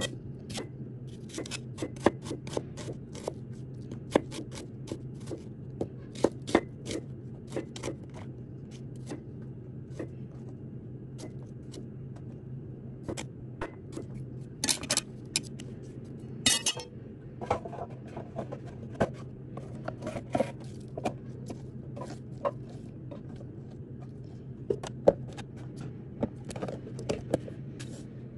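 Cleaver chopping garlic and shallots on a cutting board: irregular knocks of the blade hitting the board, with two longer scraping sounds about halfway through. A steady low hum runs underneath.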